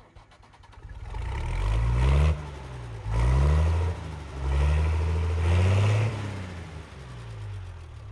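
An engine revving up three times, its pitch climbing each time and then dropping back.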